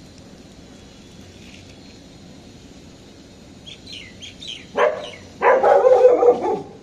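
Birds calling: about four seconds in, a quick run of short falling chirps, then a louder harsh call of about a second near the end.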